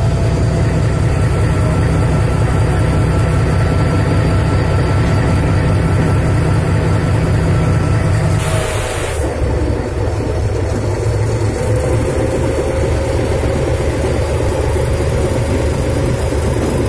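Narrow-gauge diesel locomotive engine running steadily close by, with a deep, even rumble as the train moves. About halfway through there is a short hiss, after which the engine note drops a little.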